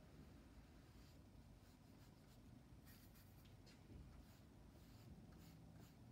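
Near silence, with faint soft scratching of a paintbrush on watercolour paper.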